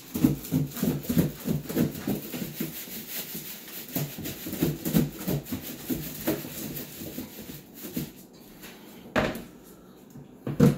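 Chicken chunks being shaken in flour inside a covered plastic container: a rapid, rhythmic thudding rattle for about six seconds, then a few looser shakes. Two sharp knocks near the end as the container is set down.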